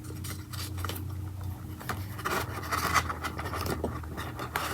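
Fingers rubbing and scratching across a printed paper instruction card, with light clicks and rustles.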